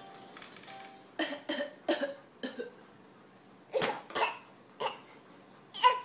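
An infant of about eight months making short, forced fake coughs: a quick run of four, a pause, three more, and a louder one near the end.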